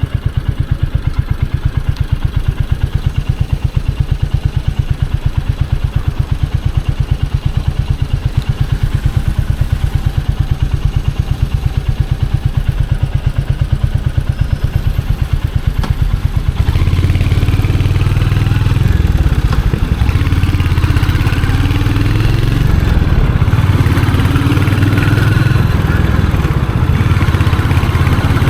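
Royal Enfield Hunter 350's single-cylinder engine and exhaust idling with an even, rapid beat. About two-thirds of the way in it gets louder, and the engine note rises and falls as the bike is ridden off and revved.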